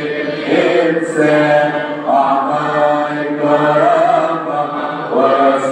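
Coptic Orthodox priest chanting a tasbeha hymn solo, his male voice drawing out long held notes that slide slowly between pitches, with short breaths between phrases.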